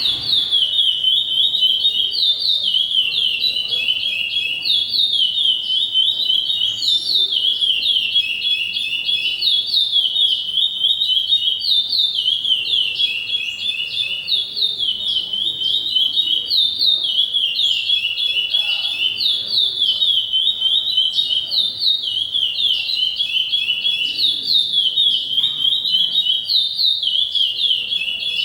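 A songbird singing one long unbroken song of quick, high notes that each slide downward, repeated in fast rolling phrases.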